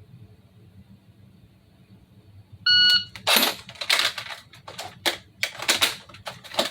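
A shot timer's short start beep about two-thirds of the way in, then a quick run of plastic clatter and knocks as the airsoft FN P90's top-mounted magazine is pulled out and a fresh one seated in a timed reload.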